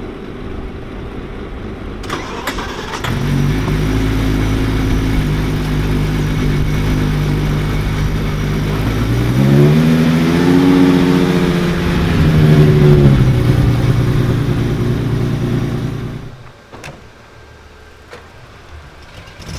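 Supercar engine starting: it cranks and catches about three seconds in, settles into a steady idle, then rises in engine speed about nine seconds in, holds, and eases back down. The sound cuts off abruptly about sixteen seconds in.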